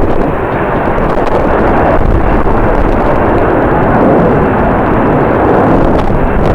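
Jet airliner engines running, heard as a loud steady rush mixed with strong wind buffeting the microphone.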